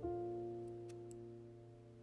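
Background lo-fi music: a soft piano chord struck once and fading away.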